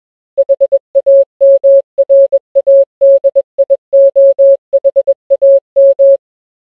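Morse code sent as a single steady beeping tone, keyed in a run of short and long beeps, stopping about a second before the end.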